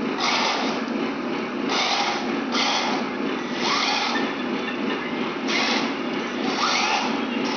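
A 1/16 scale RC tank's gear motors whining as it pivots on its tracks in short bursts, about one a second, over a steady hum.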